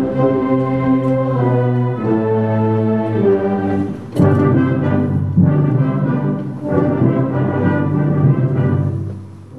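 Concert wind ensemble playing sustained, brass-heavy chords. A sharp percussive hit comes about four seconds in, and the band swells louder after it.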